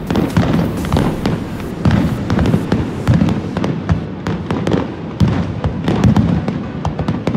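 Aerial fireworks shells bursting in a rapid, continuous string of sharp bangs and crackles over a low rumble.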